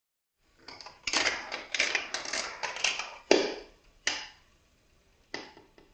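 A GraviTrax steel marble rattling and clattering down through plastic FlexTube sections and track pieces, a quick string of hard knocks. Then three separate sharp knocks as it drops and lands, the loudest about three seconds in.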